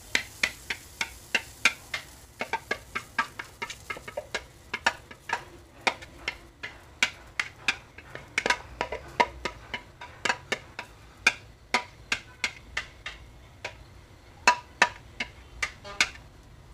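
Wire whisk clicking and tapping against a glass mixing bowl while scraping pancake batter out into a frying pan. The sharp clicks come about three to four a second, unevenly.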